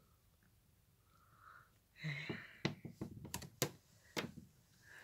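A Chihuahua's claws clicking and tapping irregularly on bare wooden floorboards. The clicks begin about two seconds in, after a near-silent start.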